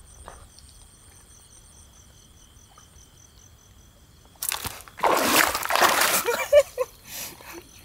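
Shallow water splashing and sloshing as a person lunges out of it onto a rocky bank, a loud burst of about a second and a half a little past halfway. Before it, steady cricket chirring.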